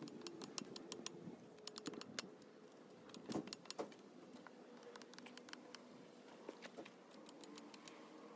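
Faint, scattered clicks and light rattling, with a slightly louder cluster about three and a half seconds in.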